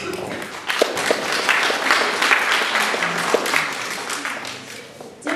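Audience applauding in a hall. The clapping swells about a second in and dies away near the end.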